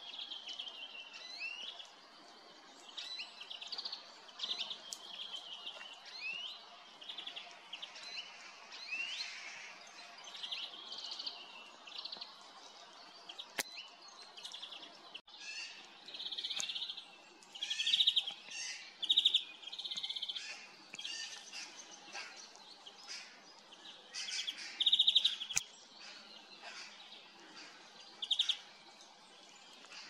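Forest birdsong: European greenfinches and other small birds calling and twittering, with many short high chirps and quick rapid trills, busiest and loudest in the second half.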